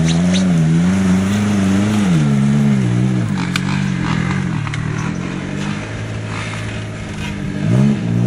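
Suzuki Samurai's engine pulling under load as the 4x4 crawls over ruts, its revs wavering and swelling with the throttle, then dropping away about three seconds in, with a quick rev blip near the end. A few light clicks and knocks come through around the middle.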